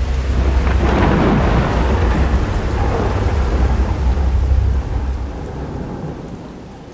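A logo-reveal sound effect: a deep rumble under a rushing noise, swelling about a second in and fading away over the last two seconds.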